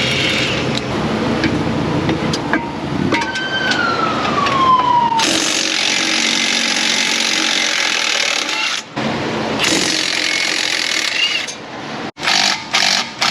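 Impact wrench run in long bursts of loud, even rattling noise while a wheel is taken off for a brake job. A falling whine comes a few seconds in, and a quick run of short trigger blips near the end.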